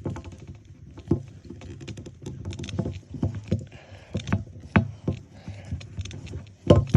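Hands digging and prying at a toy doll's packed hair to free a hidden surprise toy: irregular scratching, rustling and hard plastic knocks and clicks.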